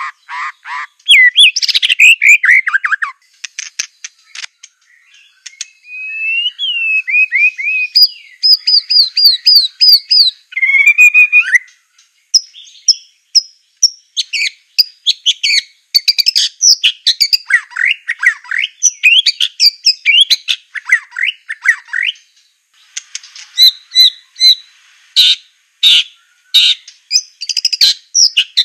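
White-rumped shama (Aceh murai batu) singing a long, varied song: clear whistled slurs, fast runs of repeated notes, and a string of sharp clicking notes near the end.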